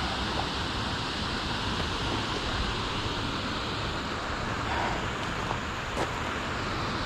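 Steady rushing outdoor noise, with a single sharp click about six seconds in.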